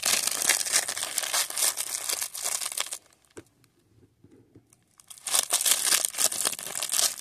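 Cellophane wrapper of a baseball-card cello pack crinkling as it is torn open by hand. There is a gap of about two seconds in the middle, then the crinkling starts again.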